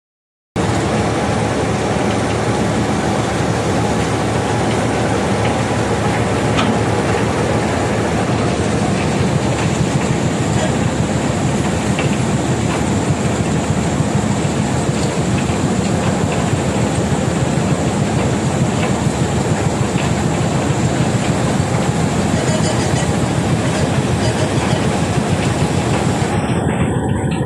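Heavy machinery at a gravel-crushing site: the stone crusher and excavator running together as a dense, steady mechanical din with scattered small rattles. It starts abruptly.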